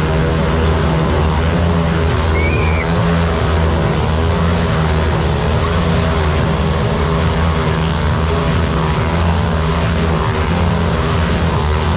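Motorcycle engine running steadily as the bike loops around inside a steel mesh globe of death, its pitch wavering slightly.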